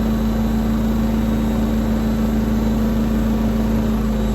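Washing machine spinning at its fastest spin speed, about 1610 RPM: a steady hum with one strong, constant low tone.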